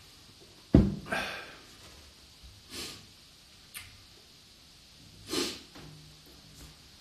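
A sharp knock a little under a second in, most likely the drinking glass set down on a hard surface. Then come three short, noisy breaths close to the microphone and a small click.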